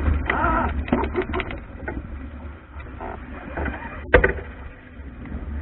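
Wind buffeting the microphone and water rushing and splashing along the hull of an Albacore sailing dinghy heeled over in choppy water. There is one sharp knock about four seconds in.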